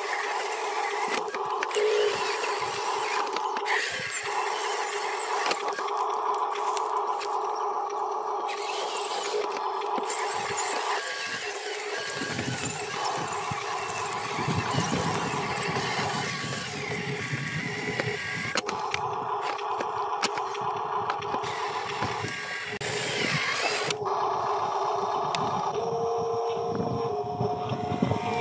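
Huina RC dump truck's electric drive motor and gearbox whining steadily as the loaded truck drives over dirt and dry stalks, with a rougher low rumble from the wheels in the middle stretch.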